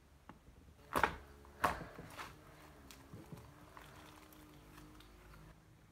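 Borax-activated slime being stretched and kneaded by hand, giving two loud wet pops about a second and a second and a half in, then softer squelches and crackles as it is folded.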